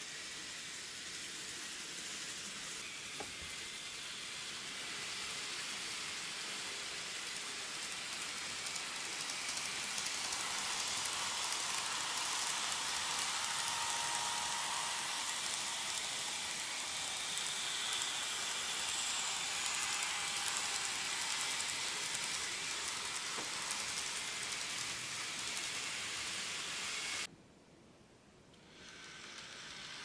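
N gauge model trains running on the layout's track, a steady hiss of wheels and motors that grows louder for several seconds in the middle as trains pass through. Near the end the sound cuts out abruptly for about a second and a half, then returns.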